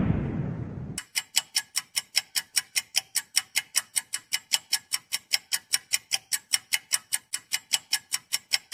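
The last of a loud blast dies away and cuts off about a second in. Then comes a fast, even ticking, about four ticks a second, like a clock or timer sound effect.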